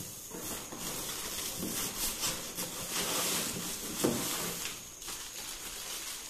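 Plastic wrapping and packaging inside a cardboard TV box being handled: irregular rustling and crinkling of plastic sheet and bags, with a louder rustle about four seconds in.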